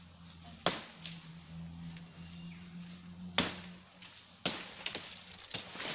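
Three sharp chopping blows of a blade into the woody stem of an Arenga undulatifolia (polod) palm, about 0.7, 3.4 and 4.5 seconds in, as the palm is cut down for its heart.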